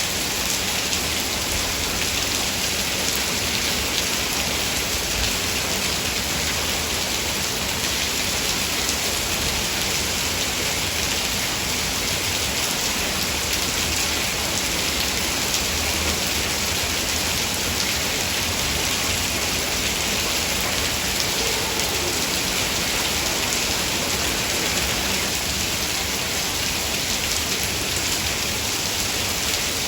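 Heavy rain falling steadily on woodland, a constant dense hiss of drops with no thunder.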